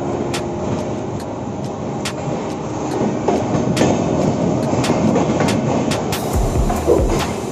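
Express train with LHB coaches running on the track, heard from on board: a steady rumble of wheels on rail with repeated sharp clicks, growing louder about three seconds in. Low thumps join near the end.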